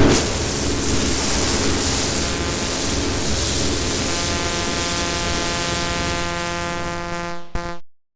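Harsh synthesized noise made in GarageBand: a loud hiss that gradually gives way to a buzzing stack of steady electronic tones, then cuts off abruptly shortly before the end.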